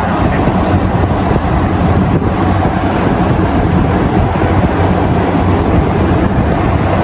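Large drum cooling fan running steadily: an even rush of air with a low hum underneath.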